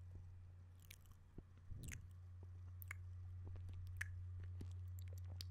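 Close-miked wet mouth sounds: irregular lip smacks, tongue clicks and moist sucking noises, with the sharpest click about four seconds in. A steady low hum runs underneath.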